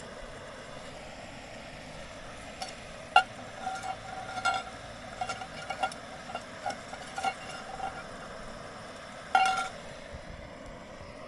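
A metal utensil clinking and scraping against a metal cooking pot while food is stirred, about a dozen ringing clinks with the loudest two near 3 and 9 seconds in, over a steady hiss.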